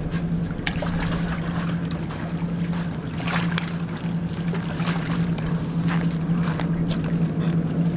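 A steady low engine hum runs throughout, under a few sharp clicks and handling noises from pliers working a hook out of a small blue catfish.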